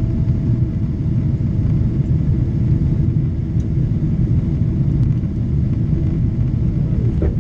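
Steady low roar of an airliner in flight, jet engines and airflow heard from inside the passenger cabin.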